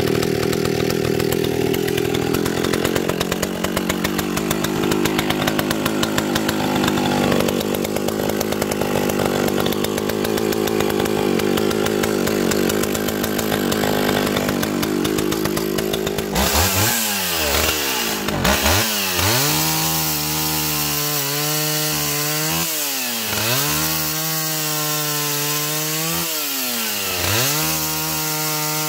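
Echo CS-500VL two-stroke chainsaw running hard and cutting firewood. In the second half its engine speed repeatedly drops under load and climbs back again, several times in a row.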